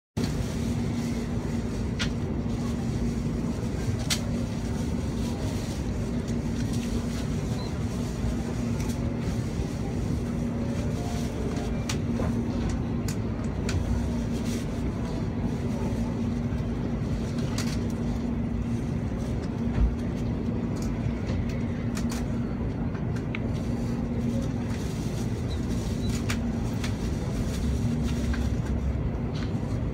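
Steady hum and hiss inside a Shinkansen N700A passenger car standing at the platform, with a constant low drone, a few faint clicks and one short thump about twenty seconds in.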